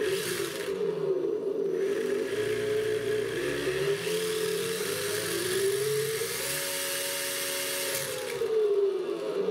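Simulated car engine sound from a GT Power RC sound and light module, played through a small loudspeaker on the chassis. The engine note revs up about four seconds in, holds at a higher pitch for a second or two, then drops back toward idle near the end.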